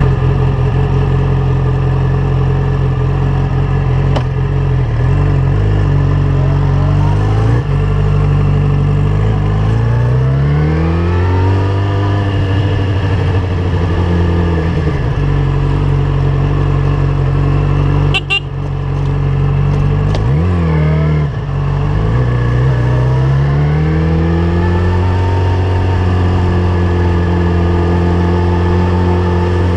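Yamaha FZ1's inline-four engine running through a LeoVince GP-style aftermarket exhaust. It idles steadily at first, then its pitch rises and falls several times as the bike pulls away and picks up speed, with two brief dips in the sound partway through.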